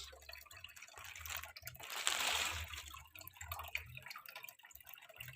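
Water splashing and dripping as a plastic bag of fish and its water is emptied into an aquarium, with the biggest splash about two seconds in.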